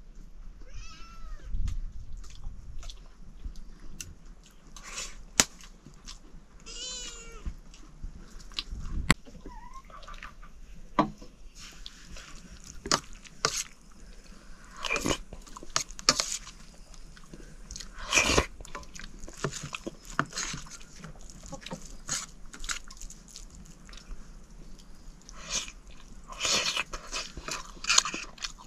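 People eating a home-cooked rice meal: chewing, with many short clicks and knocks of food and plates. There are two brief wavering animal calls, about a second in and again around seven seconds.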